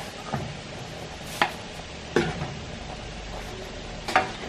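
Metal ladle scraping and knocking against a large shallow pan of simmering tteokbokki while scooping rice cakes out, about four sharp clinks over a steady hiss.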